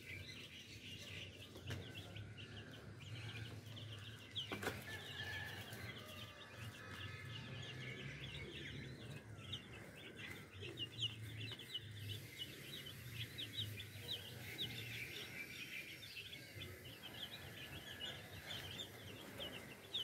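A group of young chicks peeping continuously, many short high chirps in quick, overlapping succession.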